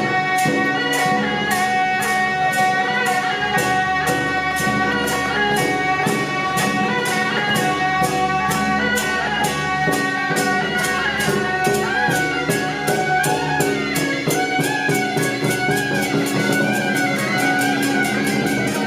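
Procession music: a sustained, wavering melody over a steady, fast beat of percussion strikes, about three to four a second.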